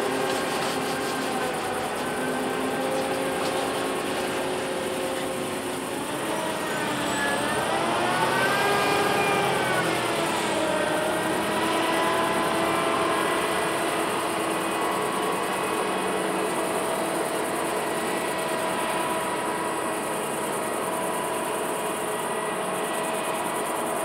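Claas Lexion combine harvester's diesel engine running steadily as the machine drives along a road. About seven seconds in, the engine pitch rises, then falls again by about eleven seconds.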